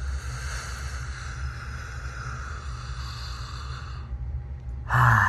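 A steady slurping, drinking sound lasting about four seconds, then stopping. A voice starts loudly near the end.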